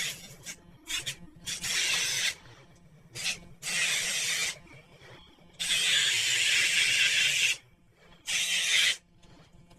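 A dog's claws being filed down, most likely with a nail grinder: a rough, hissing rasp in about five bursts with short pauses between them. The longest burst, about two seconds, comes just after the middle.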